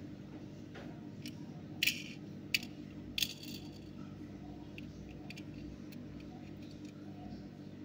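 Handling noise from a die-cast metal toy car turned in the fingers: a few sharp small clicks about two to three seconds in, then fainter ticks, over a low steady hum.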